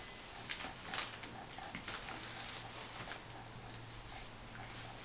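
Rustling and crinkling of packaging being handled during unpacking, in a run of short irregular crackles, over a faint steady low hum.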